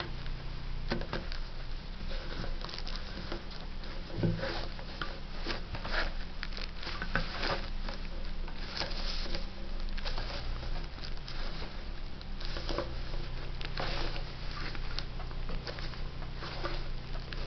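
Denim fabric and a plastic embroidery hoop being handled and shifted on a sewing machine bed: irregular rustles, light taps and scrapes, over a steady low hum.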